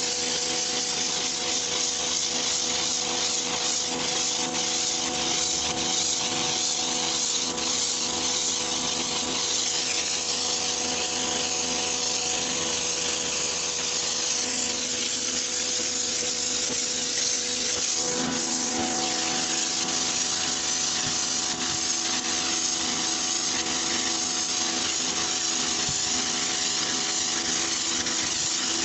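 A pressure washer running steadily, its motor and pump humming under the hiss of the water jet spraying onto a shag rug.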